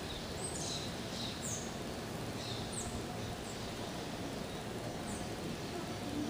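Outdoor garden ambience: a bird chirping repeatedly, short high notes that fall in pitch, over a steady background hiss.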